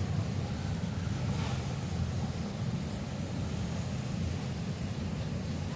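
CSX freight train cars rolling past at a grade crossing: a steady low rumble of steel wheels on the rails with no horn.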